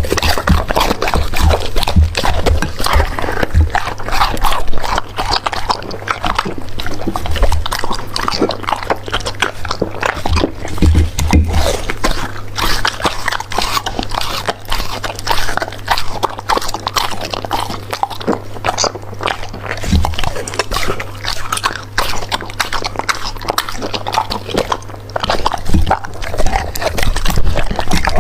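A dog chewing and crunching its food, a dense, irregular run of bites and crunches throughout.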